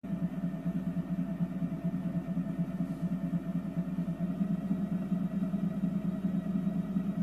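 Whole-body vibration plate running under a cat's weight: a steady buzzing hum from the motor and shaking platform.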